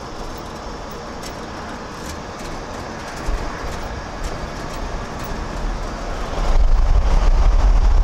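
1977 Ford F-250 pickup driving, heard from inside the cab: a steady rumble of engine and road noise. About six and a half seconds in, a loud low buffeting of wind on the microphone takes over.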